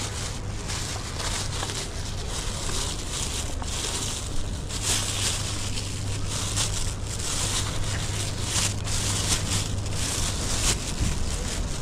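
Thin plastic carrier bag crinkling and rustling in the hand, in quick irregular crackles that grow busier from about four seconds in, over a steady low rumble.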